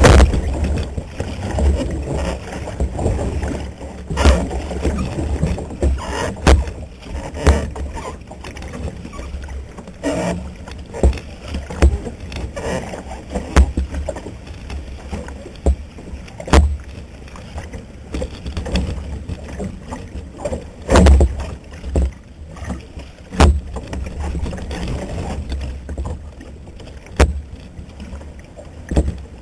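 Outrigger canoe moving through ocean chop: water rushing and slapping against the hull over a steady low rumble, with sharp splashes and knocks every one to three seconds, loudest at the very start and about two-thirds of the way in.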